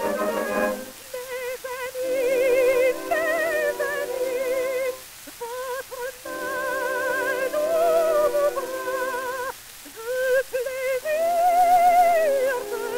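Operatic soprano singing with a wide vibrato over orchestral accompaniment on a 1906 acoustic-era disc recording, thin in bass and treble, with record surface hiss. The orchestra plays alone for about a second, then the voice sings phrases broken by two short pauses and ends on a long held high note near the end.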